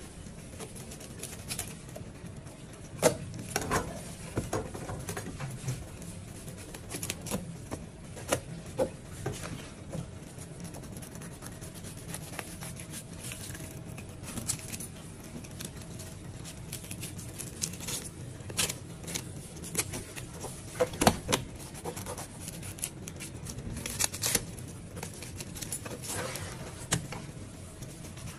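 Knife blade scraping scales off a grouper's skin, in irregular rasping strokes with scattered clicks. Sharper knocks come about three seconds in and again around twenty-one seconds. A steady low hum runs underneath.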